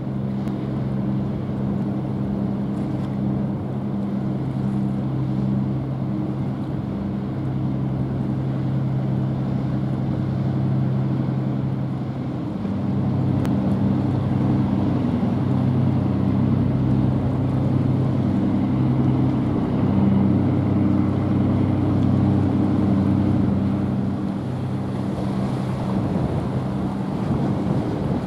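Small coastal cargo ship's diesel engine humming steadily as it passes, several low steady tones that grow a little louder about halfway through, over the wash of its bow wave and wind on the microphone.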